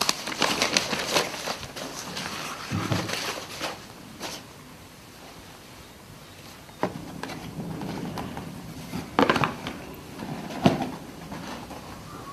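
Sheets of paper rustling as they are handled and packed into a suitcase, busiest in the first few seconds, with a few sharp knocks in the second half.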